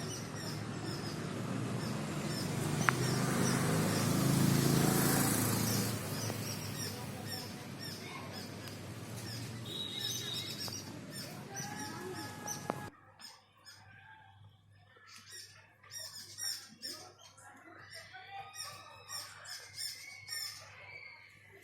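Birds chirping and singing, short repeated calls over a steady rushing noise that cuts off abruptly about halfway through, after which the birdsong stands out clearly against a quiet background.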